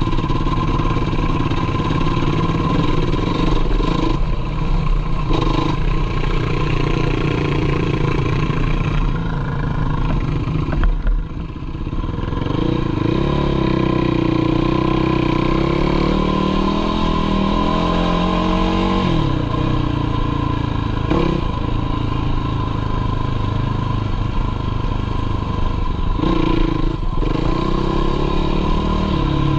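Sport quad's engine running under way on a dirt trail, its revs rising and falling with throttle and gear changes. About eleven seconds in it briefly eases off, then climbs steadily in pitch for several seconds before dropping back.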